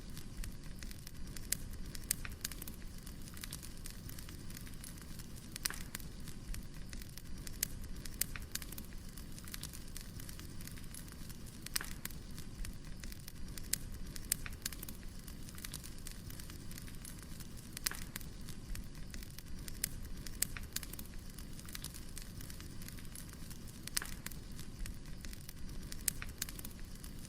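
Firewood burning: a steady low rumble of flames with irregular crackles and pops, and a few louder snaps every several seconds.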